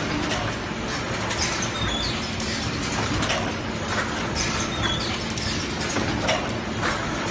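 Automatic cream sandwich biscuit machine running: a steady mechanical hum and clatter with many small clicks, and a short, high, falling squeak twice, about three seconds apart.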